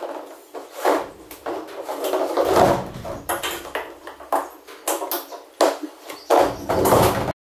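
Handling sounds of a solar panel cable being routed and pressed along a metal roof rack: irregular clicks, knocks and rustling. The sound cuts off abruptly near the end.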